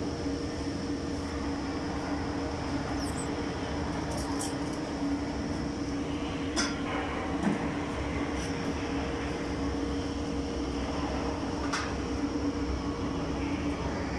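Welding equipment running with a steady electrical hum over a constant rushing noise, with a few sharp clicks of metal on the steel railing.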